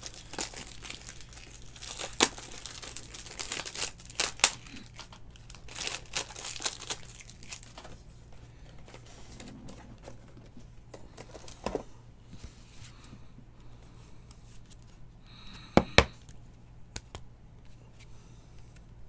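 Plastic wrap and card sleeves crinkling and tearing as trading cards are handled and slipped into a rigid plastic top loader, with sharp taps and clicks. The crinkling is densest in the first half, and the loudest sound is a quick pair of knocks near the end.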